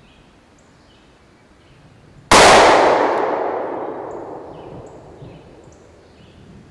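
A single shot from a Sig Sauer P365 9mm micro-compact pistol about two seconds in. Its report echoes and dies away slowly over several seconds.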